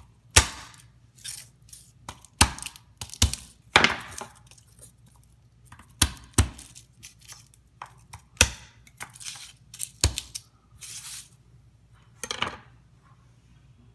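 Garlic cloves smashed with the flat of a chef's knife on a wooden cutting board: a series of irregular sharp knocks, with short rustles of papery garlic skin being peeled off near the end.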